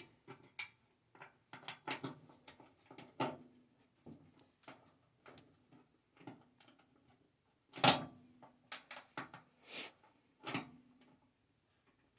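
Scattered clicks, taps and knocks of hand tools and screws being worked on an old vacuum tube TV's cabinet. A few louder knocks leave a short hollow ring, the loudest about eight seconds in and another near ten and a half seconds.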